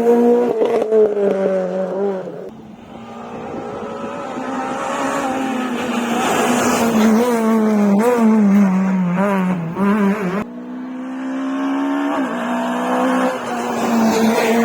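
Rally car engines revving hard at full attack, with rapid gear changes and throttle lifts and some tyre squeal. One car fades, then another approaches and passes at high revs. About ten seconds in the sound cuts abruptly to another car accelerating and shifting up.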